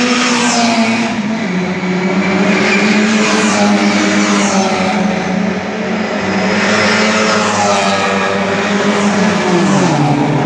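Historic racing cars passing one after another at race speed, engines working hard. Each engine note drops in pitch as its car goes by, with a clear drop near the end as an open sports racer passes.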